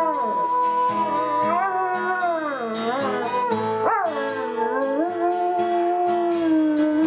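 A dog howling in long notes that swoop up and down, along with guitar music.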